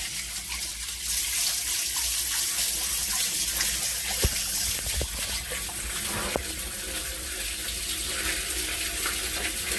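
Snowmelt water from a French drain system running and splashing steadily into an outdoor sump basin, with a few faint clicks.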